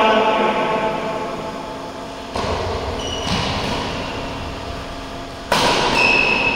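Sounds of badminton play in a hall: two sudden thuds, about two and a half and five and a half seconds in, and short high squeaks after each, over a steady low hum.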